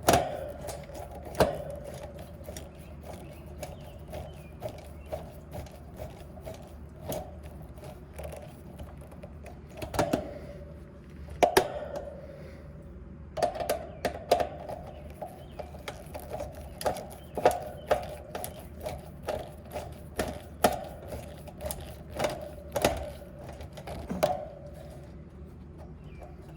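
Scattered metallic clicks and taps of a nut driver and wires being worked on the terminal screws of an AC contactor being replaced. A steady hum runs underneath and breaks off briefly about halfway through.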